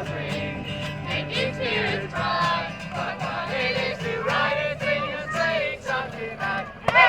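A group of carolers singing a Christmas carol, voices held and sliding in sung phrases over a steady low accompaniment.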